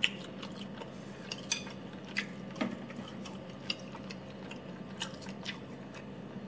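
Scattered sharp mouth clicks from chewing a bite of pork sausage, with light taps as a plate is handled. A steady low hum runs underneath.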